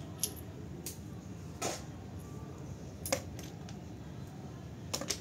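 Small metal audio-connector parts clicking and clinking as they are handled and sorted by hand, a handful of sharp separate clicks with two close together near the end, over a steady low hum.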